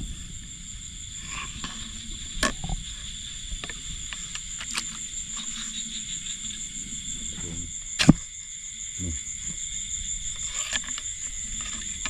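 Steady chorus of frogs and insects calling, with a few sharp clicks or knocks, the loudest about eight seconds in.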